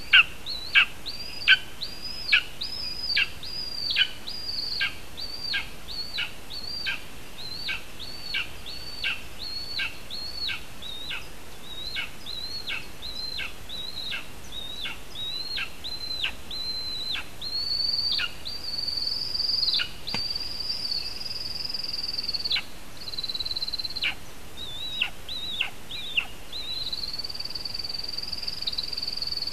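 Lesser spotted eagle calling at the nest: a rapid series of high, sharply falling yelps, about one and a half a second, that turn into longer drawn-out high notes in the second half, as the mate flies in.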